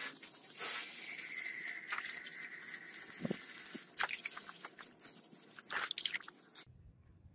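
Brass wire brush scrubbing rusty angle-grinder parts in a tub of muddy water, with wet scraping, splashing and sloshing as the parts are swished and rinsed. The sound cuts off abruptly near the end.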